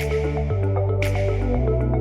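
Background music with a steady beat: electronic track with a bass line that changes note about every half second and a cymbal-like hit about once a second.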